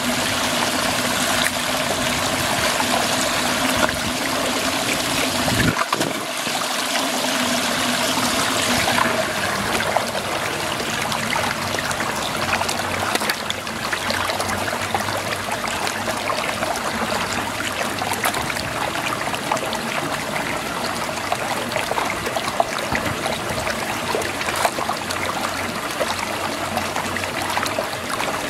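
Muddy water swirling and draining down a whirlpool hole, a steady rush and trickle of water.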